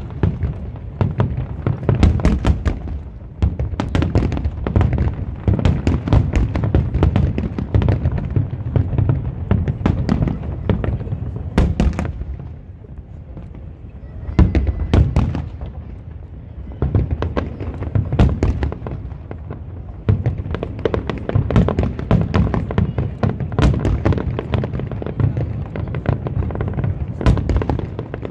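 Aerial firework shells bursting in rapid succession: a dense run of sharp booms and reports over a constant low rumble. The barrage eases briefly about halfway through, then picks up again.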